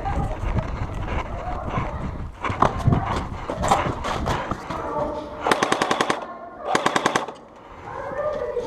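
Airsoft gun firing two short full-auto bursts about a second apart, each a rapid string of shots at roughly fifteen a second. Scattered knocks and shuffling come before the bursts.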